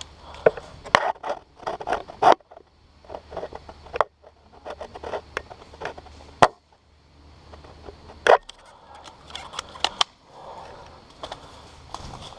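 Irregular scraping with sharp cracks and snaps, a few of them loud, from movement through brush.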